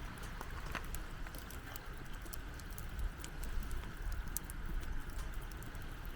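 Wood fire crackling, with many small sharp pops and snaps scattered irregularly over a low rumble of wind.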